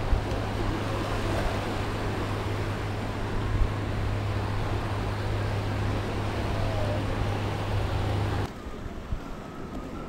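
Wind buffeting the microphone over the wash of small waves breaking on a sandy shore, with a steady low rumble. About eight and a half seconds in it drops suddenly to a quieter wash of water and breeze.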